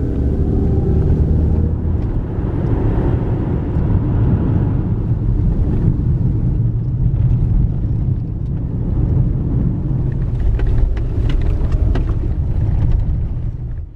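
Engine and road noise heard inside a moving SUV's cabin, a steady low rumble. In the later part, on a dirt road, scattered clicks and knocks come through over the rumble.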